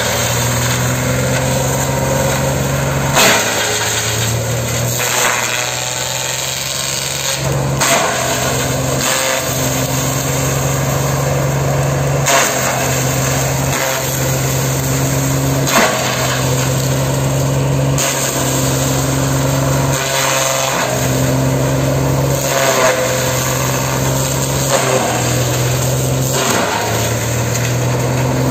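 Mahindra Yuvo 575 tractor's diesel engine running a tractor-mounted shredder (pulverizer) as dry coconut fronds are fed in: a steady engine hum with loud cracking and crunching every few seconds as the fronds are chopped, the engine note dipping briefly under some of the loads.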